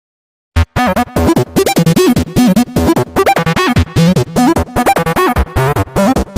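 Music: a loud, choppy tune of short broken notes that bend up and down, starting about half a second in after a moment of dead silence.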